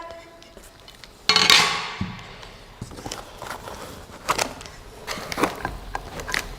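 Packing material and parts being handled during an unboxing: a loud scraping rustle about a second in, then a scatter of light knocks and taps.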